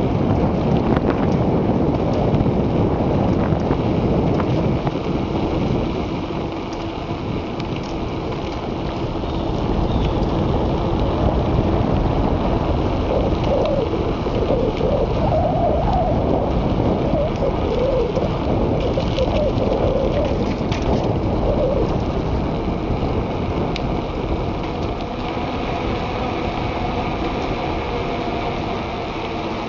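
Loud, steady wind buffeting and rumble on the microphone of a small digital camera carried on a moving bicycle.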